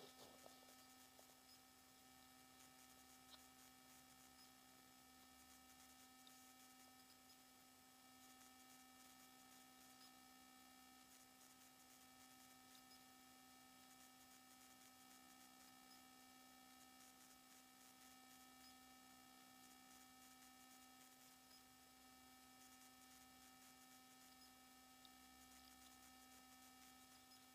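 Near silence: a faint, steady electronic hum made of several fixed tones.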